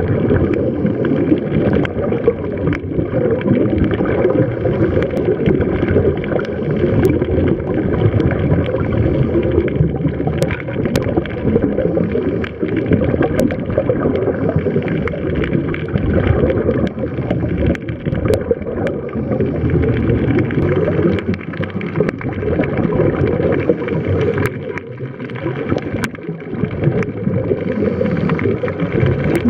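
Muffled underwater sound picked up by a camera in its housing during a scuba dive: a steady low rumble with the bubbling and gurgling of divers' regulator exhaust, broken by scattered sharp clicks.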